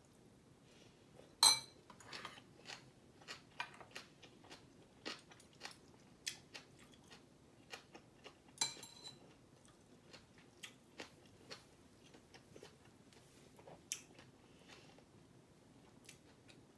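Close-miked eating of bibimbap: steady chewing and mouth sounds with many short clicks, and cutlery knocking against a bowl. The two loudest knocks come about a second and a half in and near the nine-second mark.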